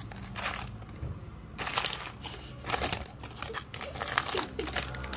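Clear plastic packet crinkling and rustling as it is handled and opened, a run of sharp crackles that grows denser about a second and a half in.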